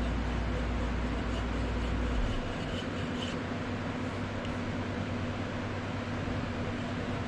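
Coping saw cutting shallow grip grooves into a knife handle by hand, heard as faint, regular strokes over a steady background hum. A deep part of the hum stops about two seconds in.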